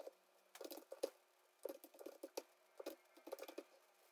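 Faint typing on a computer keyboard: three short runs of keystrokes as a line of text is entered.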